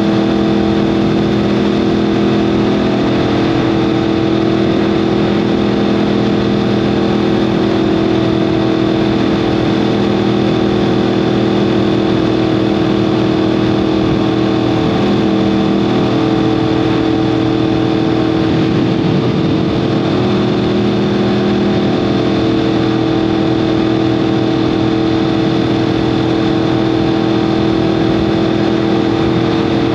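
2015 Yamaha R1M's crossplane inline-four (CP4) engine running through an Akrapovic exhaust at steady revs, a constant drone that holds its pitch.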